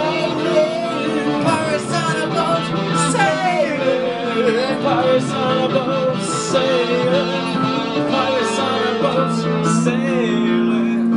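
Keyboard and guitar playing a song together, with a melody line that bends and wavers in pitch over the chords through the middle of the passage.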